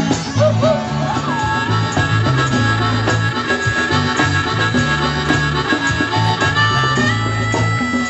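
Live band music: harmonica playing over guitar and a steady bass line, with bent notes about a second in and a long held high note near the end.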